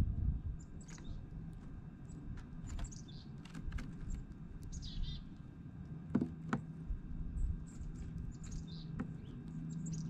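Small songbirds chirping with short, high calls every second or two, including a brief trill about halfway through, over a low, steady background rumble. Two sharp clicks come a little past the middle.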